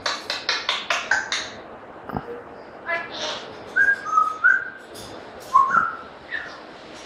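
African grey parrot calling: a quick run of short, sharp sounds, then several short whistled notes in the second half, some stepping up or rising in pitch.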